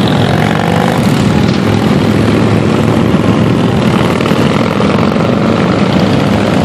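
A procession of cruiser and touring motorcycles riding past, their engines making a loud, steady drone.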